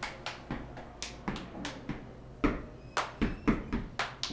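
A stomp routine: group stomps and hand claps striking in a quick, uneven rhythm, three or four sharp hits a second, with a brief pause about two seconds in.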